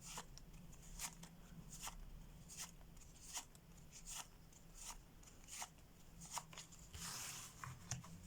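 Playing cards handled on a table: soft snaps, about one every three-quarters of a second, as cards are dealt out one by one, with a short rustle near the end.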